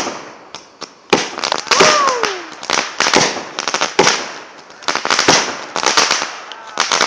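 Multi-shot consumer firework cake (the "Royale") firing a rapid series of shots, one or two a second, each a sharp bang followed by a crackling hiss. A falling whistle sounds about two seconds in.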